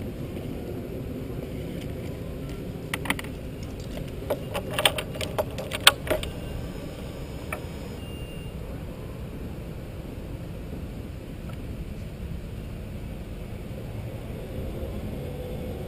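A set of keys jangling and clicking in a short cluster from about three to six seconds in, over a steady low background rumble.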